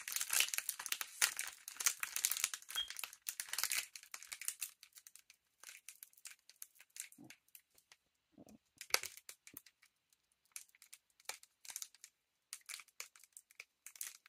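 Trading-card booster pack wrapper crinkling and tearing as fingers work it open: a dense run of crackling for the first few seconds, then sparser crinkles and small crackles.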